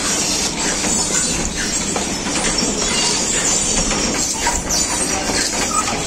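Rows of belt-driven kohlu oil presses in a mustard-oil mill running together: a steady, dense mechanical clatter with scattered knocks.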